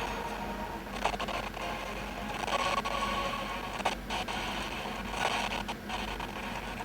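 Lotto ball draw machine running, a steady rush of air with scattered knocks as the numbered balls tumble and mix for the draw.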